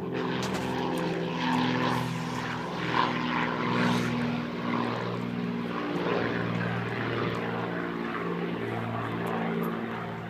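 Terrier growling, long low growls one after another, each a little different in pitch, with brief breaks between.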